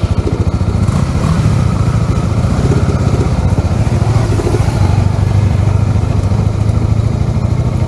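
Motorcycle engine running as the bike gets under way, a rapid even exhaust beat that grows a little louder about a second in and then holds steady.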